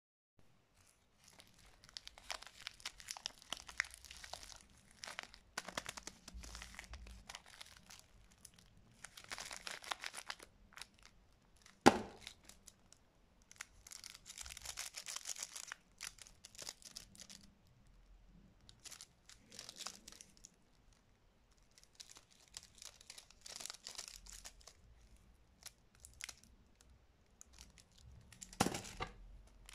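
Clear cellophane candy wrappers crinkling and rustling as they are handled, in repeated bursts a second or two long with quiet gaps between them. A single sharp snap is heard about twelve seconds in, the loudest sound here, and a smaller one near the end.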